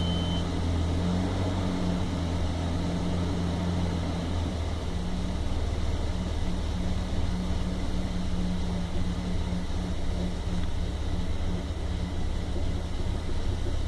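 Toyota Land Cruiser FZJ80's 1FZ-FE straight-six engine idling, a continuous low hum at an even level.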